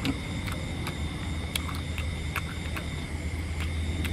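Scattered short clicks and smacks of a person chewing and eating prawns, over a steady low rumble and a thin, steady high tone.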